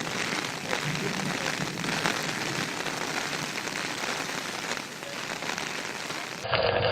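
Heavy rain pouring down, a steady dense hiss with fine pattering that cuts off suddenly near the end.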